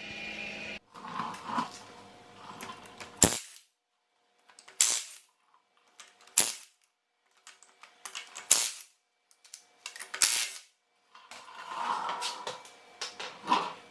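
Craftsman cordless impact wrench hammering on the wheel's lug bolts in a series of short, sharp bursts about one and a half to two seconds apart, loosening them to take the wheel off.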